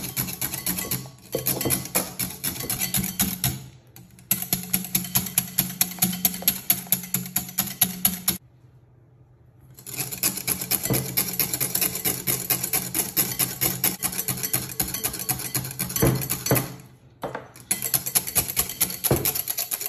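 Wire whisk beating against a glass bowl, a rapid rattling clatter of several strokes a second, as egg yolks and oil are whisked into mayonnaise. The whisking stops briefly a few times, with a longer pause about halfway through.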